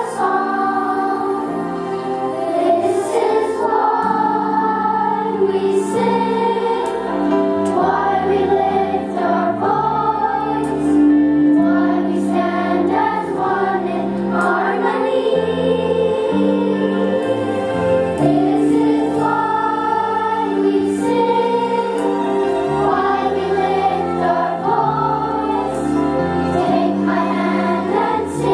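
Children's choir singing together over an instrumental accompaniment, with steady low notes that change every couple of seconds under the voices.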